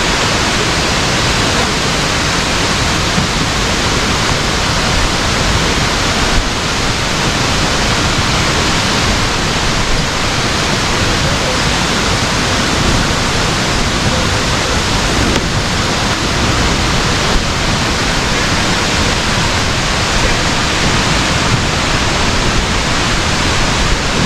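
Water pouring over a waterfall, a loud, steady rush of white water.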